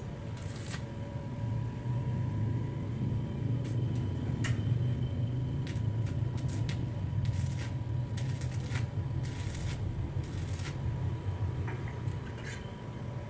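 A low steady hum with scattered light clicks and rattles.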